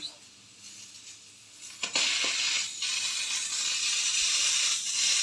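Aluminium pressure cooker venting steam at its weight valve. After a couple of clicks about two seconds in, a loud steady hiss starts, the sign that the cooker has come up to pressure.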